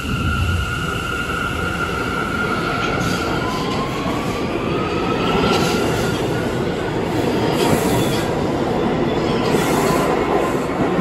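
New York City subway train pulling out of an underground station. Its motors whine, rising in pitch as it picks up speed, over the steady rumble and clatter of steel wheels on rail.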